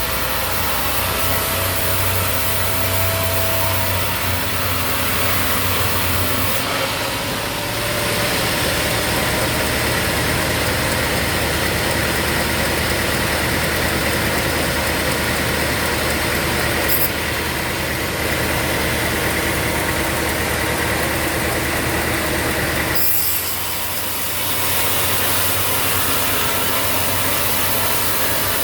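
Sawmill machinery running steadily, a motor-driven saw with a continuous hum and noise. The sound shifts abruptly twice, about a quarter of the way in and again near the end.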